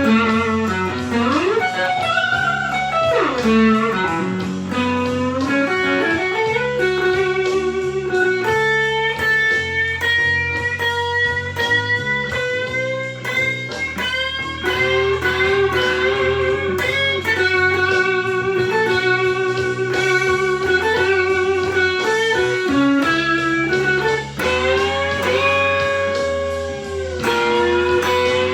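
Slow-blues lead on a Stratocaster electric guitar through a Tube Screamer TS9 overdrive into a Fender Blues Junior tube amp, with string bends near the start and long held notes with vibrato, over a backing track with a bass line.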